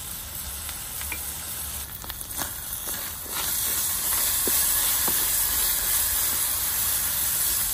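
Rice frying in hot oil in an enamel pot with soy and barbecue sauce just added, sizzling steadily. The sizzle grows clearly louder about three seconds in as a wooden spoon stirs the sauce through, with a few light knocks of the spoon against the pot.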